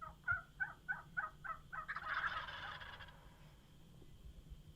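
Wild turkeys calling: a run of about seven evenly spaced yelps, roughly three a second, then a short rattling gobble about two seconds in.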